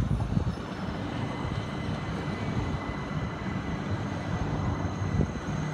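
Southern Class 377 Electrostar electric multiple unit running slowly along the platform beneath a footbridge: a steady low rumble with a thin, steady high whine.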